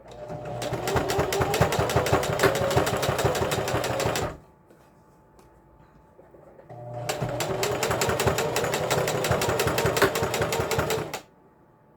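Electric sewing machine stitching fabric in two runs of about four seconds each, with a short pause between. Each run picks up speed as it starts, then the needle strokes go on fast and even.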